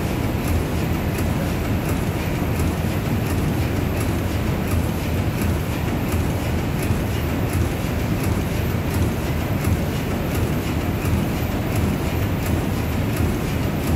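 Large steam pumping engine running steadily, a dense low mechanical noise with a light ticking that repeats about twice a second.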